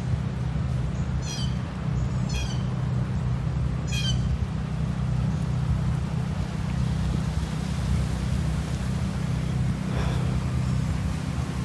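A bird calling three times in quick, descending strings of high chirps in the first four seconds, and once more faintly near the end, over a steady low rumble.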